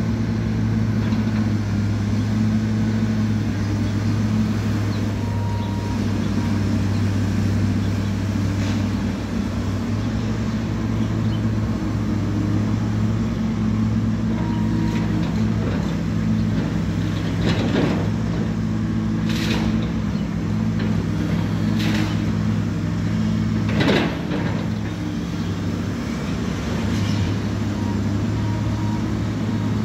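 Diesel engine of a high-reach demolition excavator running steadily, with four sharp knocks or crashes from the demolition work in the second half, the last one the loudest.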